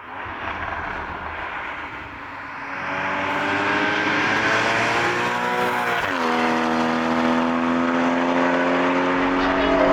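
Porsche Boxster GTS 981's 3.4-litre flat-six engine and exhaust under acceleration. The engine climbs steadily in pitch, drops sharply about six seconds in as it changes up a gear, then holds a steady pitch.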